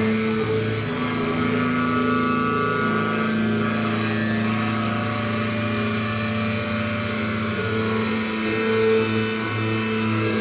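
Live noise rock: sustained droning, distorted electric guitars and amplifier noise, holding steady low tones under a dense hiss.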